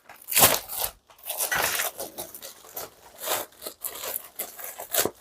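Packaging being handled and torn open, irregular rustling, scraping and tearing noises, loudest about half a second in.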